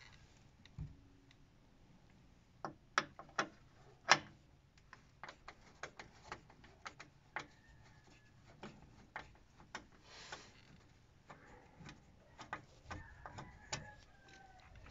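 Irregular light clicks and ticks of a Torx screwdriver working screws out of a plastic underbody cover, with a few louder clicks about three to four seconds in.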